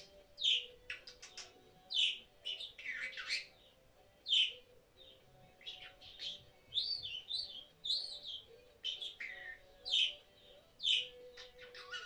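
Pet budgerigar chirping and warbling: a quick string of short, sharp chirps, with a few arched whistled notes in the middle.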